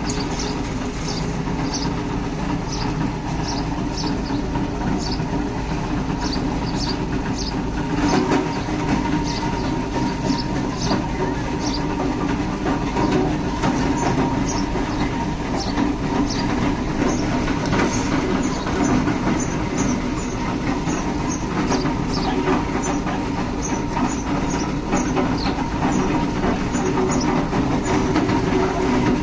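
Steady mechanical drone of a running engine or machine, with short high chirps repeating about once or twice a second over it.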